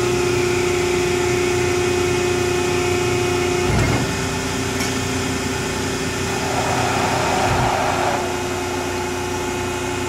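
Hydraulic power unit of a 400-ton Cincinnati CNC hydraulic press brake running with a steady pump whine. There is a brief knock about four seconds in, and about two seconds of hiss a little later.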